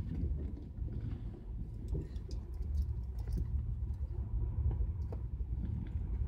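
The 1977 Camaro's 350 V8 idling, a steady low rumble heard from the back seat, with light clicks and rustles as someone moves about at the open passenger door.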